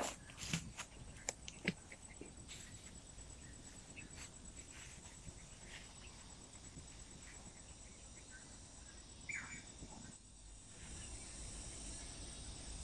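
Quiet outdoor ambience with a faint, high, steady insect trill like a cricket's. There are a few light knocks and clicks in the first two seconds from handling a green bamboo tube.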